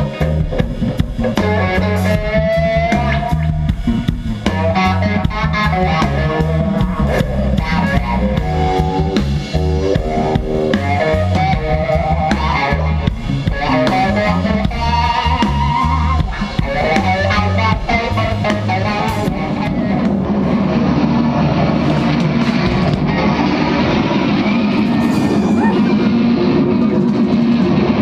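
Live rock band: an electric guitar solos in bending melodic lines over drums and bass guitar. About two-thirds of the way through the drums stop and a dense, steady wash of guitar noise takes over.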